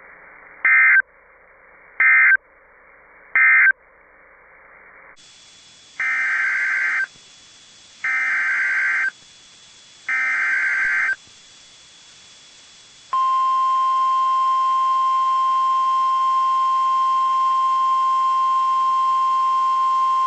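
NOAA Weather Radio EAS tones. First, three short SAME digital data bursts close the previous message. Then three longer SAME header bursts announce the next alert, and about 13 s in the steady 1050 Hz weather radio warning alarm tone begins and holds.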